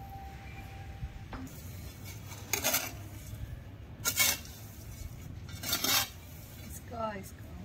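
Small wooden-handled metal trowel scraping through gravelly red soil and sand on a concrete floor while mixing potting soil: three scrapes about a second and a half apart.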